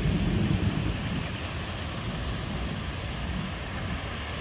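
Thunderstorm ambience: a steady wash of rain and wind noise on the microphone, with a low rumble that eases after the first second.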